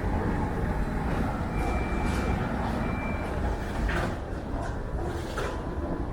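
Steady low vehicle rumble, with two short high electronic beeps about one and a half seconds in and again about a second later.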